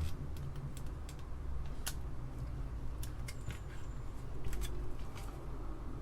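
Irregular, scattered clicks of the Apple II Plus keyboard's keys being pressed and handled, over a low steady hum.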